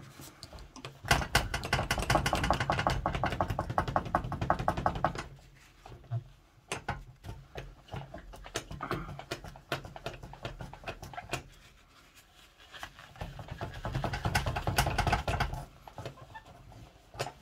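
Cotton wool pad rubbed quickly back and forth over the painted face of a longcase clock dial as it is cleaned, a fast scratchy rubbing in two spells with a few light clicks in between.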